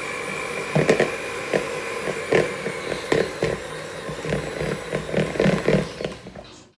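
Electric hand mixer running steadily with a high whine while creaming butter, its beaters knocking and scraping irregularly against the bowl.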